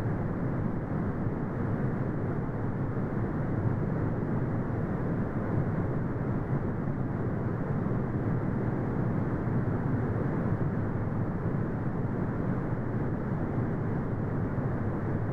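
Synthetic brown noise: a steady, deep, even rush of noise with its weight in the low end and no high hiss. It runs without change.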